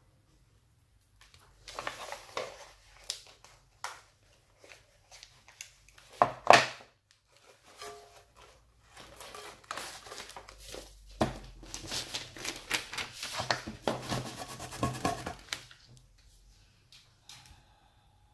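Metallic foil wrapping paper rustling and crinkling as it is handled and wrapped around a tin, in uneven bursts with a sharp loud crackle about six and a half seconds in.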